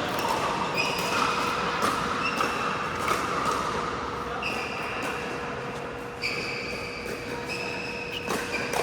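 A pickleball rally on an indoor court: sharp paddle-on-ball pops roughly once a second, with short high squeaks of sneakers on the court floor between them, in an echoing hall.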